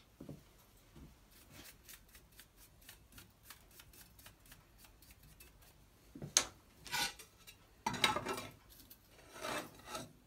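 Handling sounds with no drill motor running: faint light clicks, then several louder scrapes and knocks in the second half as a sheet of aluminium is laid and shifted on the pillar drill's metal table.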